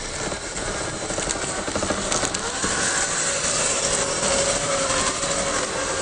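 Electric motor and gearbox of a 1:10-scale RC crawler on a Traxxas TRX-4 chassis, whining as it drives over the forest floor. The whine steadies at one pitch about halfway through.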